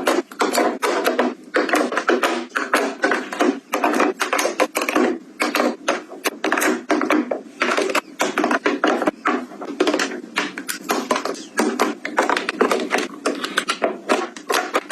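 Small items being handled and set down close up: a quick, continuous clatter of taps, clicks and light knocks of hard objects against one another.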